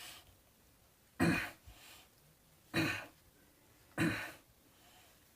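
A man clears his throat three times: short, rough coughs about a second or so apart.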